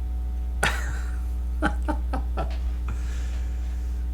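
A person's short wordless mouth sounds: a sharp breathy burst, then four quick short pulses about a quarter second apart, over a steady low electrical hum.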